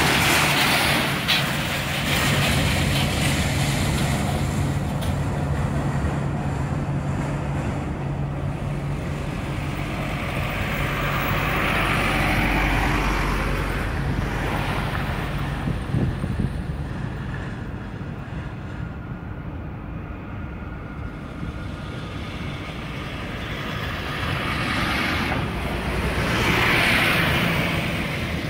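Airport ground vehicles driving past close by: a baggage tractor's engine hums steadily at the start, and a bus passes near the end, with traffic-like vehicle noise swelling and fading in between.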